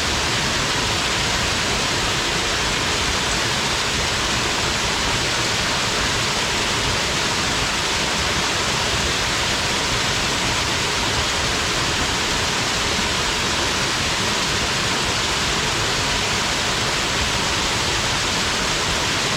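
Waterfall plunging and splashing into its pool, a steady, even rush of falling water.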